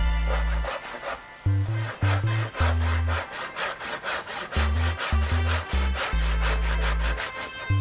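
Wood being cut with rhythmic back-and-forth strokes, about three to four a second, typical of a hand saw, over background electronic music with a heavy bass line.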